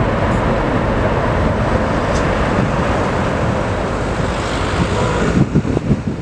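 Loud, steady jet noise from a Boeing 747's four engines, a dense rush with faint whining tones under it. Wind buffets the microphone near the end.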